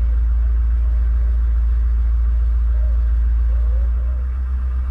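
Vehicle engine idling close by: a steady low rumble that eases slightly near the end.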